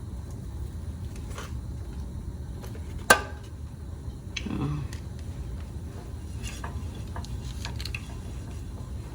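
Kitchen cookware being handled over a steady low hum: one sharp metallic clank about three seconds in, then a few light clicks and knocks.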